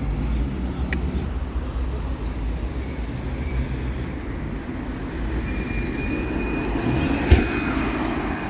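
Road traffic passing close by: a steady rumble of car engines and tyres on the street. Near the end a faint high whine joins it, and there is one sharp knock about seven seconds in.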